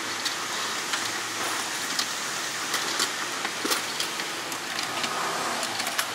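Steady hiss of busy kitchen background noise, with scattered light clicks and clinks of utensils against steel pots.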